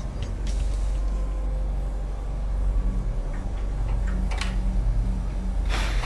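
A steady low rumbling drone whose deeper tones shift every half second or so, with a few faint clicks about four seconds in and again near the end.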